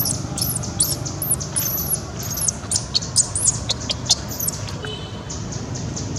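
A run of very high-pitched animal squeaks, each rising and falling in pitch, about two a second, stopping about four and a half seconds in, over a steady low hum.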